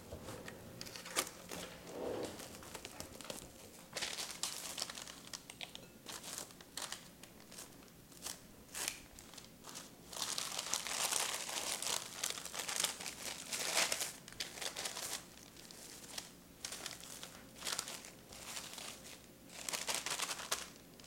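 Plastic wrap and parchment paper crinkling on and off as they are rolled and wrapped around a log of cookie dough, busiest in the middle.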